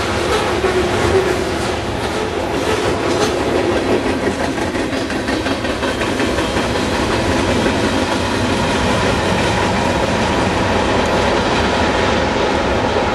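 Freight cars rolling past at track speed: a steady rumble of steel wheels on the rails, with a few sharper clacks in the first few seconds.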